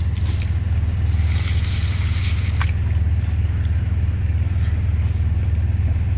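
Suzuki Jimny's engine running steadily with a strong low hum, and water splashing as a 4x4 goes through a water crossing, most noticeably between about one and two and a half seconds in.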